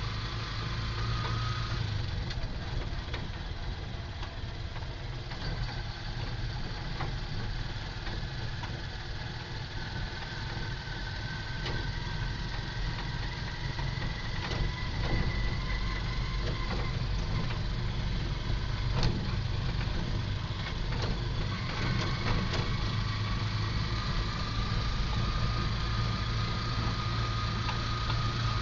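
Vehicle engine running and road noise heard from inside the cabin while driving, with a thin whine that shifts in pitch and a few short knocks over bumps.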